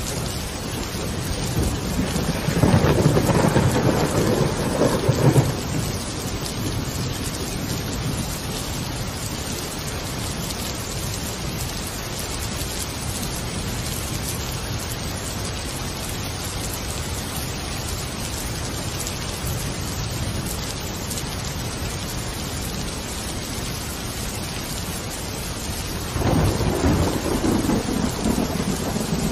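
Steady rain with two rolls of thunder: one rumbling swell about three seconds in and lasting a few seconds, another starting near the end.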